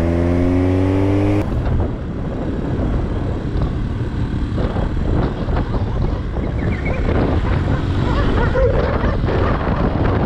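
Motorcycle engine accelerating, its pitch rising steadily, cut off abruptly about a second and a half in. Then a rough, buffeting mix of wind noise and engine from a motorcycle ridden along a rough dirt track.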